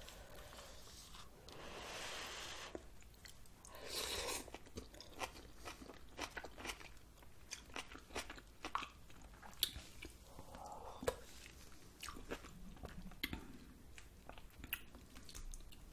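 Close-miked chewing of noodle soup, with many short wet mouth clicks and smacks and a few longer, noisier sounds about two and four seconds in.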